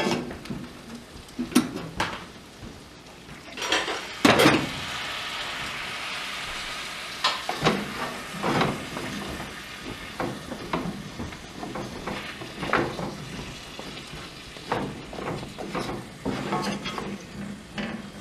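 Potatoes, carrots and onions sizzling in butter in a cast iron skillet on a wood cook stove, pan-fried to brown, as a wooden spoon stirs them and knocks against the pan again and again, loudest about four seconds in.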